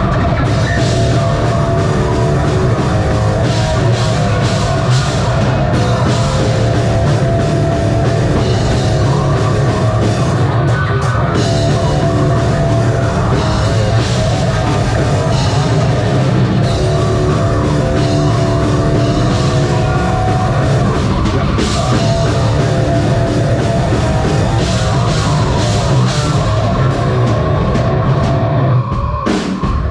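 Live heavy metal band playing loud and steady: distorted guitars, bass and a pounding drum kit, with a brief drop near the end.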